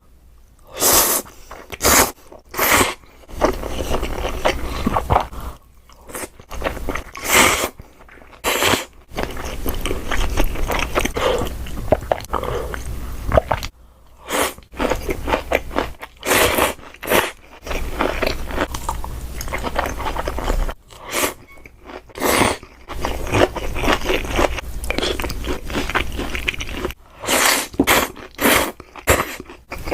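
Close-miked eating: loud, crisp crunching bites at irregular gaps of one to a few seconds, with chewing in between.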